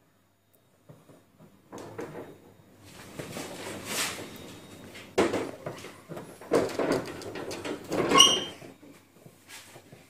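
Scraping and knocking handling noises in irregular bursts, with a short high squeak a little after eight seconds, the loudest moment.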